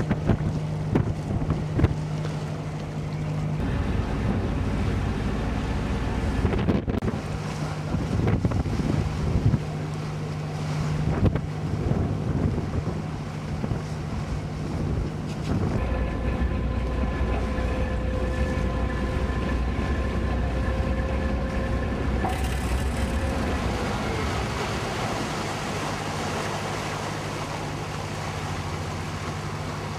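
A passenger ferry's engine hums steadily under water noise, with wind gusting on the microphone during the first dozen seconds. About halfway through a deeper rumble and a steady whine come in, and the whine drops away after about 24 seconds as the ferry nears a landing.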